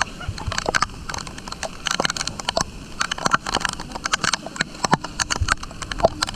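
Heavy rain and wind: raindrops strike close to the microphone in many irregular sharp taps, over a steady rush of rain.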